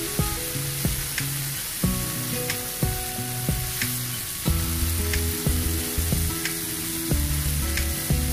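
Marinated chicken breast strips sizzling as they fry in oil in a pan, with scattered sharp pops. Background music with plucked, stepping notes plays underneath.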